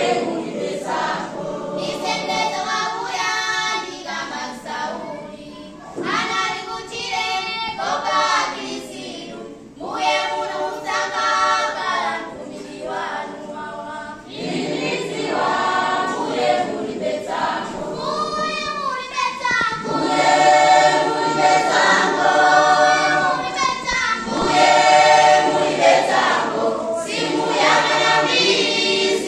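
A choir of children and teenagers singing together in phrases, with short breaths between lines, growing louder about two-thirds of the way through.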